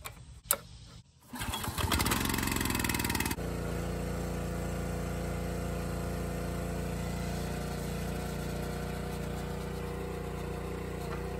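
Subaru small four-stroke engine on a hydraulic log splitter: a click about half a second in, then the engine catches and revs up, then runs steadily. Its hydraulic pump is sucking air rather than fluid as it drives the ram.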